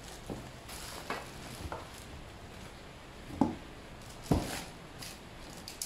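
Cardboard boxes being handled and set down on a concrete floor: a few dull knocks, two louder thumps a little past the middle, with some rustling of paper and plastic packaging.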